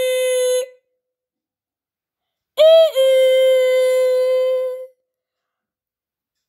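Electronic doorbell chime rung twice: two-note ding-dong, a short higher note falling to a longer held lower note. The tail of one chime ends just in, and a full chime comes about two and a half seconds in.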